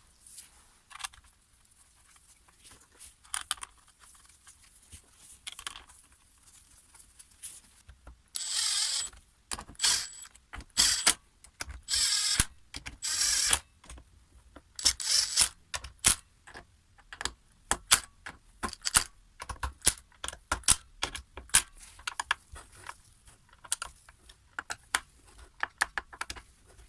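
Small metal hedge trimmer parts and hand tools clinking and clicking on a workbench during reassembly, with several short rasping bursts of under a second, most of them in the middle.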